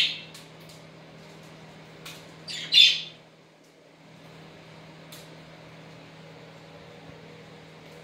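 Pet budgerigars calling: a loud short call right at the start and another about three seconds in, with a weaker one just before it and a few faint chirps between.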